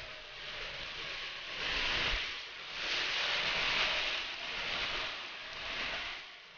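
Heavy storm rain and wind, a steady rushing hiss that swells and eases in gusts. It is loudest around the middle, where a car drives past hissing through the water on the road.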